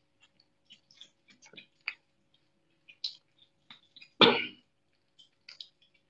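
A young otter gnawing and crunching on a catfish, with scattered short wet clicks and crunches. About four seconds in there is one short, loud cough-like burst.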